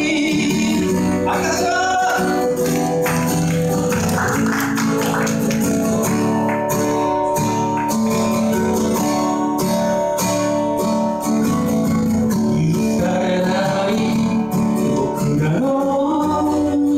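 A man singing a song live to his own acoustic guitar. In the middle the voice drops out for a guitar-only passage, and the singing comes back near the end.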